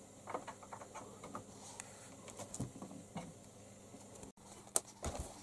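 Kitten scrabbling and pushing among stacked papers and a cardboard box: faint, irregular scratching and rustling with scattered light clicks.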